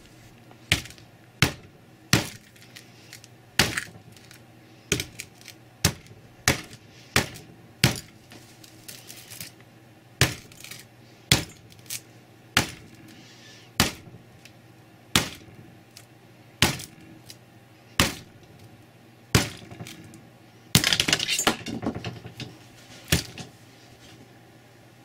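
Sledgehammer blows on a Samsung Galaxy S2 smartphone: about twenty sharp cracks, roughly one a second with a short pause near the middle, and a longer crunching stretch a little before the end as the phone's glass breaks.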